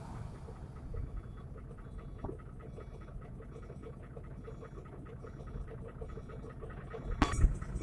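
Idling truck engine giving a steady low rumble, with faint, even ticking about four times a second and a short knock about seven seconds in.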